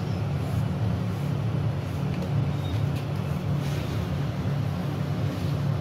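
A steady low mechanical drone, holding one pitch throughout.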